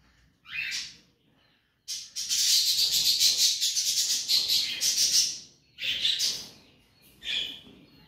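Rosy-faced lovebird chick calling as it is hand-fed from a spoon. A short chirp comes first, then a raspy, rapidly pulsing call lasting about three seconds, then a couple of shorter calls: the begging calls of an unweaned chick.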